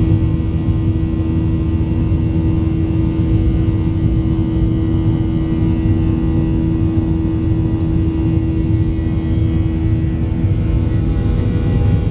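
Boeing 737-800 cabin noise during the climb after take-off: the CFM56 turbofan engines' steady drone and rumble with the airflow roar, heard from a seat over the wing. A steady hum in it fades out shortly before the end.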